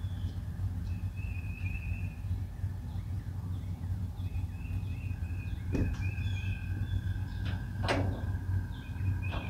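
Diesel engine idling with a steady low hum, with birds chirping over it and two sharp knocks, about six and eight seconds in, the second the louder.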